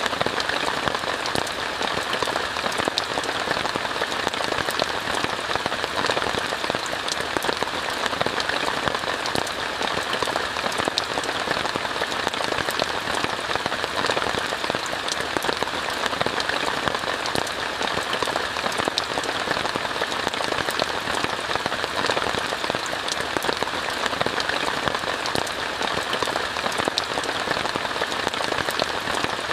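Steady rain falling on a tent: a dense, even hiss with many single drops ticking through it.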